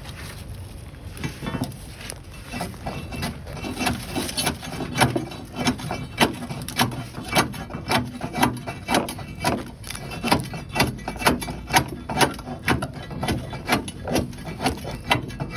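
Tree roots inside a septic tank being cut by hand: a steady rhythm of sharp cutting strokes at about two a second, building up from about four seconds in.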